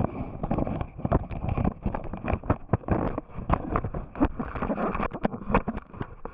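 Handling noise from a camera covered by fabric: irregular knocks, scrapes and rustling as the cloth rubs and bumps against the microphone.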